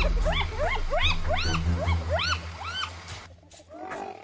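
Spotted hyenas giggling: a quick run of short, high yelps, each rising then falling in pitch, about three a second, over a low steady growl as they mob a leopard. The calls stop about three seconds in, and one lower call follows near the end.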